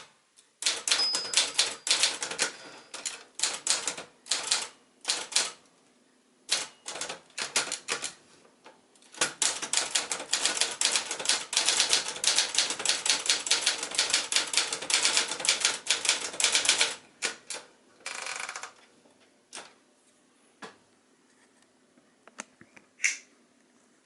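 1977 Adler J2 manual portable typewriter being typed on: rapid clattering keystrokes in bursts, with one long fast run in the middle. About two-thirds of the way through comes a brief longer rasping sound, and then the typing thins to a few isolated strokes.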